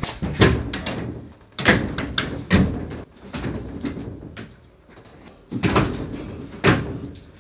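Mirrored sliding wardrobe door being lifted and jostled in its track: a series of sharp knocks and thuds with rattling between them.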